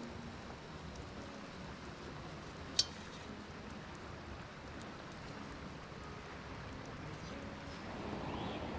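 Quiet outdoor ambience: a steady faint hiss with scattered small ticks, and one sharp high clink about three seconds in.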